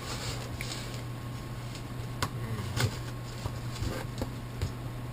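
Cardboard package being opened with a knife: scattered short clicks and light scrapes, about six over five seconds, over a steady low hum.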